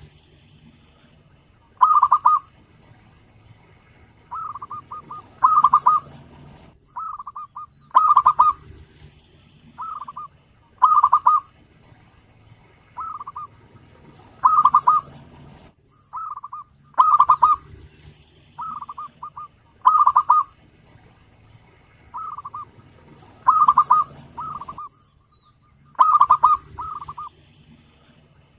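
Zebra dove cooing: loud, rapid trilled phrases recurring about every three seconds, with softer, shorter coos between them.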